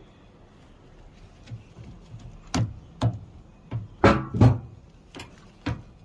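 Sharp plastic clicks and knocks, about six of them, the loudest a pair about four seconds in: a new solenoid being pushed into a washing machine's water inlet valve until its hooks snap into place.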